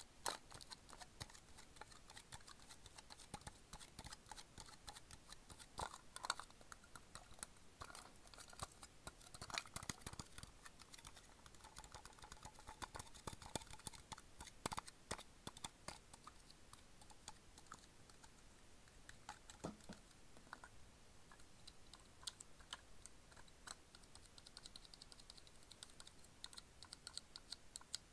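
Faint, irregular clicks and taps of fingers and nails handling a printed metal Sakuma Drops candy tin. Near the end, quicker fine ticking as the seal strip around the lid is peeled off.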